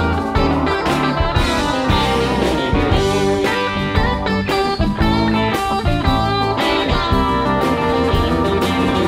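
Live rock band playing an instrumental passage: electric guitar out front over bass, keyboards and a steady drum beat.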